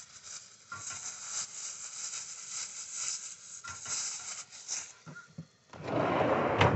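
Food sizzling in a frying pan on a camp stove: a steady, crackly high hiss, with some plastic-packet rustling. Near the end, about a second of louder rustling ends in a sharp knock.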